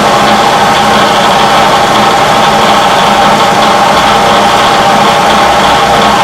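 Bridgeport vertical milling machine running steadily with its spindle turning, as when locating a workpiece with an edge finder: a constant motor and spindle hum with a steady whine.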